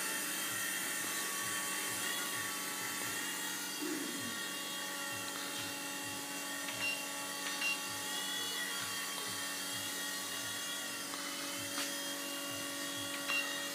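V911 micro RC helicopter's small electric motors whining steadily in flight, the tones wavering slightly in pitch as the throttle changes, with a fluttering beat from the rotor underneath. A few light ticks come through in the second half.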